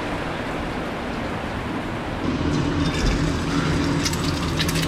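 Steady noise of heavy rain. About two seconds in it gives way to a steady kitchen hum, with a few sharp clicks as eggs are cracked into a frying pan.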